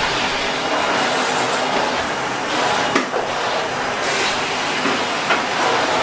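Henry cylinder vacuum cleaner running with a steady airy hiss, with a couple of sharp knocks about three and four seconds in.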